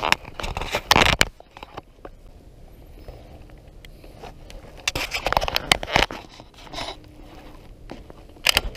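Multi-pump .177 pellet rifle being pumped and handled: scraping and clacking from the forend pump lever swinging open and shut, in several bursts.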